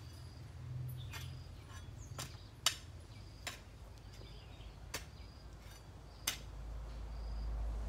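A garden hoe chopping into weedy soil: about seven sharp strikes, irregularly spaced. A low rumble builds near the end.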